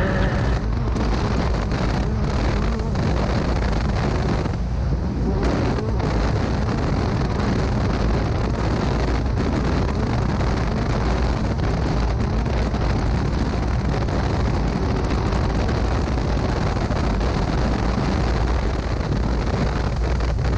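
Wind buffeting an exterior camera's microphone on a Class 10 off-road race car running fast over a desert dirt trail, a steady rush of noise with the car's engine and the dirt under the tyres blended faintly beneath it.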